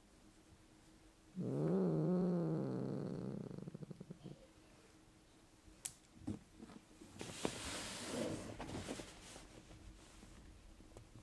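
Maine Coon cat making a low, throaty, purring rumble for about three seconds, starting about a second and a half in. Its pitch wavers, and it breaks into a pulsing rattle before it stops. Softer rustling of fur and couch fabric follows as the cat is stroked.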